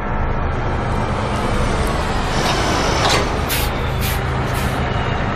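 Bus engine idling with a steady low hum. About three seconds in come a few short, sharp hisses of air from the bus.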